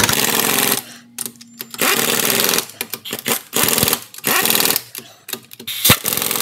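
Impact wrench running lug nuts down onto the wheel in a series of short, loud hammering bursts, about six of them, each under a second long.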